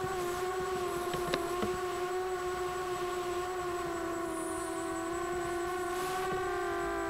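Walkera Runner 250 quadcopter's four brushless motors and propellers whining steadily under throttle during a fast forward pass. The pitch sags slightly midway and comes back up near the end.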